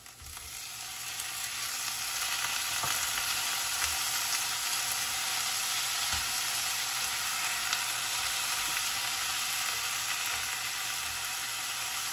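Chopped tomatoes going into a hot stainless steel pan of frying taro leaves, setting off a sizzle that swells over the first two seconds and then holds steady. A silicone spatula stirs through the pan, with a few light taps and scrapes.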